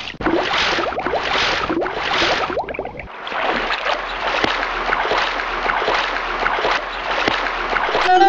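Sloshing, gurgling water: four swells about two-thirds of a second apart, then a steadier run of bubbling water.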